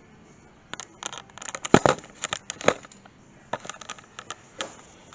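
Irregular clicks, knocks and clatter of hard parts and tools being handled, loudest a little under two seconds in and again shortly after.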